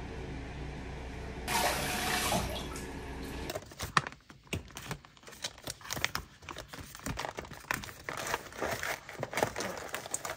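An electric facial cleansing device buzzes steadily, with a tap running for about two seconds. About three and a half seconds in, this gives way to foil sheet-mask packets being flipped through by hand, rustling and crinkling.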